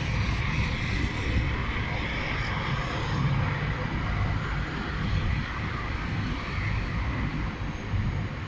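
Blizzard wind rushing and buffeting the microphone, a steady noisy roar with an uneven low rumble.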